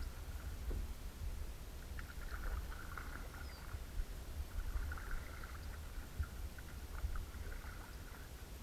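Kayak paddle strokes dipping and dripping in calm creek water, coming in two soft stretches, over a steady low rumble of wind on the microphone.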